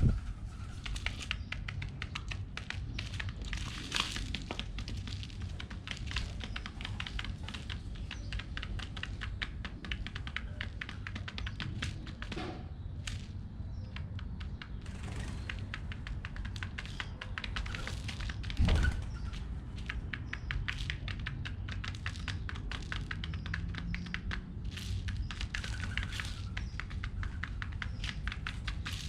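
Pigeons pecking seeds off a hard surface: a dense, fast, irregular patter of small taps. One louder thump comes about two-thirds of the way through.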